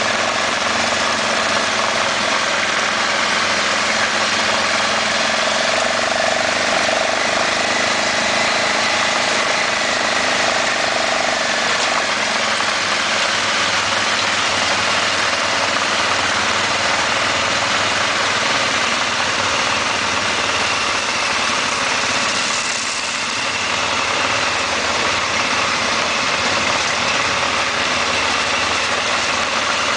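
Motorcycle engine running steadily under way on a rough gravel road, mixed with a dense hiss of wind and road noise on the microphone. It eases off briefly about three-quarters of the way through.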